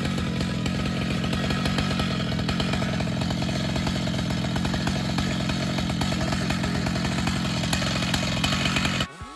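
Stihl MS 881 two-stroke chainsaw, mounted on a chainsaw mill, running steadily between cuts. It stops suddenly near the end.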